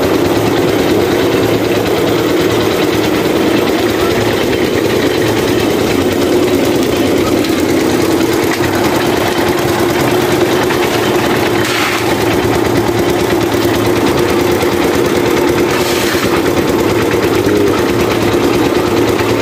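Engine of an abaca fibre-stripping machine running steadily under load, with a constant hum. Two brief swishes sound over it, about twelve and sixteen seconds in.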